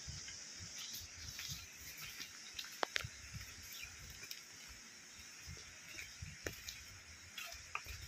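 Footsteps on a stony dirt forest trail, soft irregular thumps, with a couple of sharp clicks about three seconds in, over a steady high hiss of insects.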